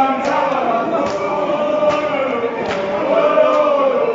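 A group of voices singing a chant together, with a drum beaten about once every 0.8 seconds.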